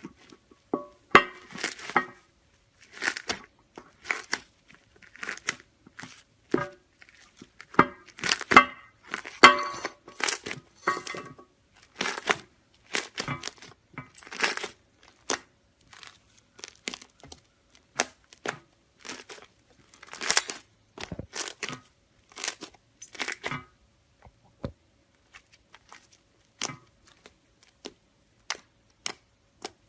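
Crunchy iceberg slime crackling as its hardened crust is handled and broken: rapid runs of short crisp crackles, thinning to occasional single clicks near the end.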